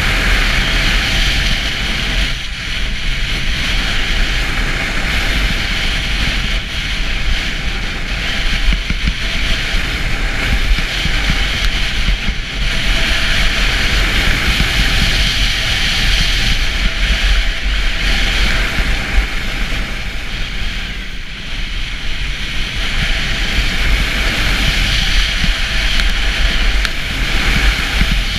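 Skis carving on packed snow, the hiss of the edges swelling and easing turn by turn, under a steady rumble of wind on the camera's microphone.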